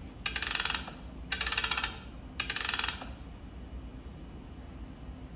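A rattle shaken in three short bursts, each about half a second long and about a second apart.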